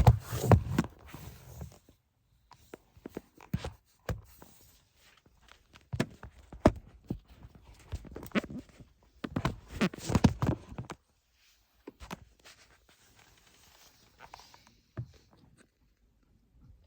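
Irregular knocks, clunks and clicks of objects being handled, coming in clusters separated by short quiet gaps.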